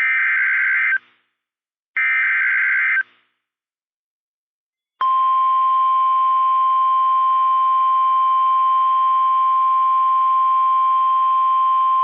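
NOAA Weather Radio alert signalling: two bursts of the SAME digital header, each a buzzy data screech about a second long and a second apart. After a two-second pause, the 1050 Hz Warning Alarm Tone comes in about five seconds in as a steady single tone, held on. This signals that a warning broadcast follows.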